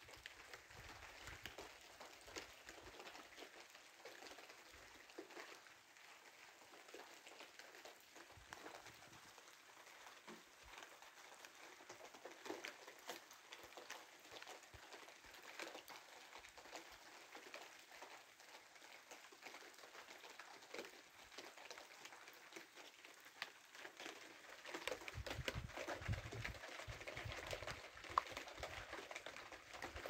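Rain falling, heard as a faint, even patter of many small drops. About 25 seconds in, a low rumble joins it and the sound grows a little louder.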